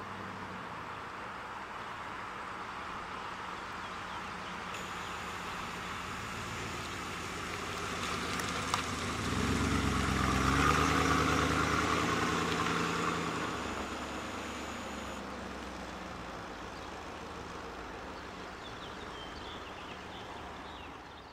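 1992 Pontiac Firebird Formula's 5.0-litre TPI V8 running as the car is driven around, swelling to its loudest as it passes close about halfway through, then fading as it moves away. A single sharp click comes just before the loudest part.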